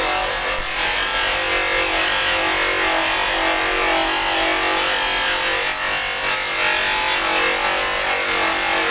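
Bench buffing machine running at a steady speed, its cloth buffing wheel spinning against a plastic headlight lens as the lens is polished: a steady motor hum under an even hiss.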